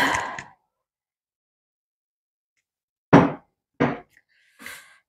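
A short sigh right at the start after a drink of water, then, about three seconds in, two sharp knocks of a glass tumbler of water being set down on a table, followed by a fainter brief rustle near the end.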